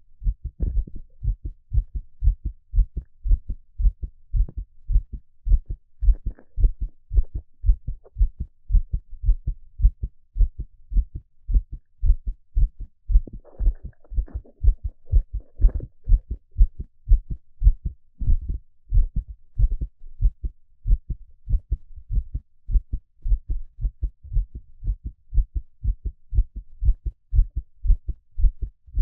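A man's heart beating steadily, heard close up through a stethoscope on the chest: a regular rhythm of low lub-dub thuds. Some faint higher noise shows briefly about halfway through.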